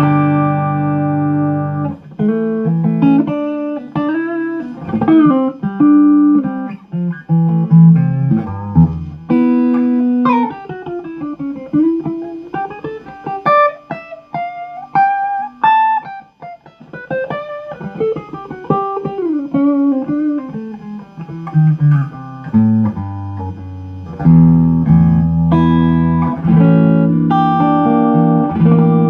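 Epiphone Sheraton semi-hollow electric guitar being played: ringing chords, then from about two seconds in a single-note melody with slides and bends, returning to held chords near the end.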